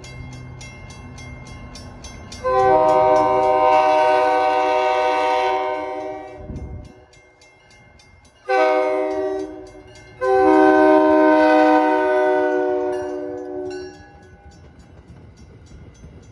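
Quill horn on an MBTA commuter train's CTC-3 cab control car, sounding a long blast, a short one and a second long blast as the train approaches. The train's rumble grows underneath as it draws alongside near the end.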